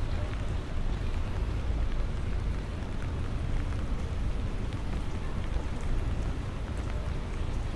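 Steady rain falling on wet stone paving, with scattered drops ticking, over a steady low rumble.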